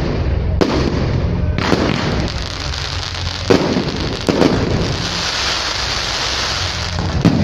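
Fireworks display: aerial shells bursting in a string of sharp bangs, about five in a few seconds. Continuous crackling between them thickens into a dense crackle in the second half.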